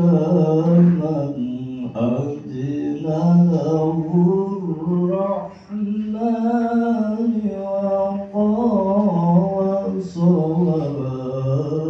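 A man reciting the Quran in the melodic tilawah style, one voice singing long ornamented notes that glide up and down, with a short breath about halfway through.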